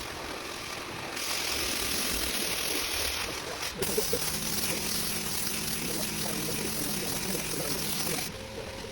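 Water running steadily, starting about a second in and stopping shortly before the end, with a faint low hum under it from about four seconds.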